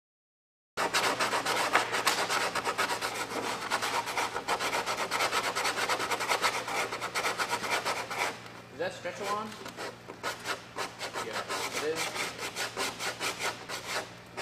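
Hand sanding of smoothing compound on the wing of an MQ-1B Predator drone, to match the wing's contour: quick back-and-forth abrasive strokes starting about a second in.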